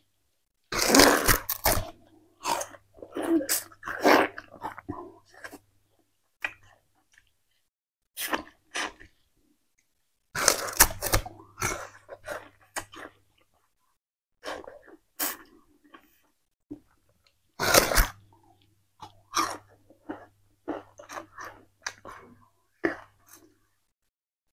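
Close, loud crunching of a person biting into and chewing fibrous raw sugarcane, in bursts of crunches with short pauses between them.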